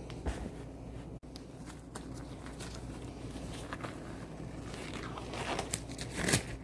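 Handling noises: scattered clicks, rustles and knocks, with a louder rustling clatter just after the start and a louder one near the end.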